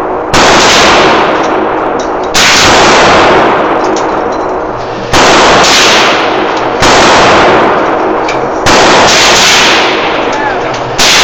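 Six revolver shots fired one at a time, about two seconds apart. Each shot hits full scale on the recording and rings out for a second or two before the next one.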